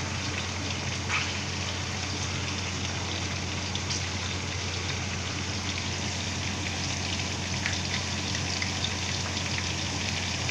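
Chicken wings deep-frying in a wok of hot oil: a steady sizzle with a few sharp pops. The oil is still bubbling hard, the sign that the chicken is not yet done.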